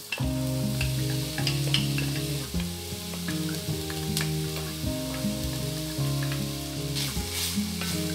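Diced onions sizzling and crackling as they are tipped into a hot enameled cast-iron pan, then stirred with a wooden spatula near the end, over background music.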